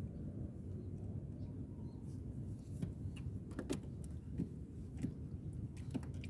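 A few sharp clicks and knocks from fishing line and gear being handled in a small wooden boat, spread through the second half, over a steady low rumble.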